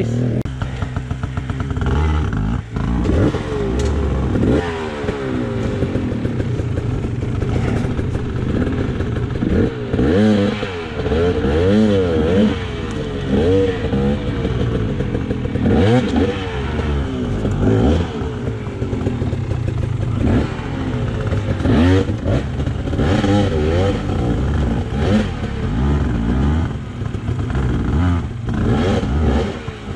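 KTM 300 XC two-stroke dirt bike engine revving up and down over and over while being ridden off-road, with scattered clacks and knocks.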